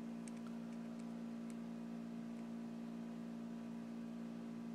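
Steady background hum, with a few faint light clicks in the first second and a half from two small steel gas piston nuts being handled in the fingers.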